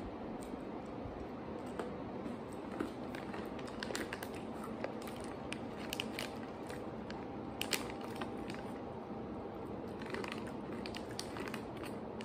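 Crunching and chewing of imo kenpi, hard candied sweet-potato sticks, heard as irregular short crisp clicks. Near the end a hand rummages in the plastic snack bag, crinkling it.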